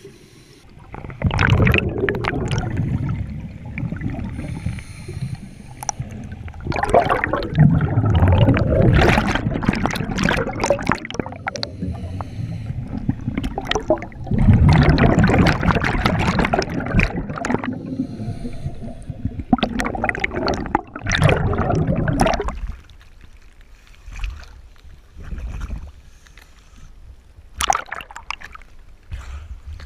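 Scuba divers' exhaled bubbles gurgling and rushing past an underwater camera housing in long bursts, one burst per exhalation through the regulator. The bubbling dies down about two-thirds of the way through, leaving a few short, sharp bubbly splashes.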